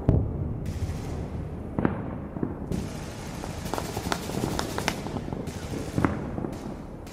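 Battle sound effects of distant gunfire: a heavy boom at the start, then scattered gunshots, a quick cluster of shots a few seconds in and another single shot near the end, over a low rumble.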